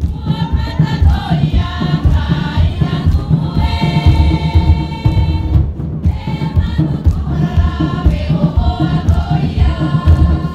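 Many voices chanting and singing together over a rapid, driving drumbeat: live music for a Marquesan group dance.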